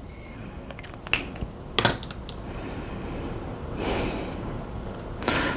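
A felt-tip marker being used on a plastic computer mouse to mark a dot: a couple of sharp plastic clicks, a short high squeak about two and a half seconds in, then a brief scratch.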